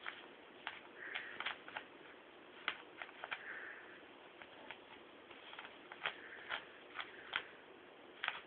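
A puppy chewing and pawing at a small object, making irregular clicks and taps, with a few short high squeaks mixed in.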